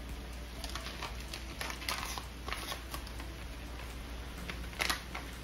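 Kitchen handling sounds: a string of light clicks and taps, with one sharper click near the end, over a low steady hum.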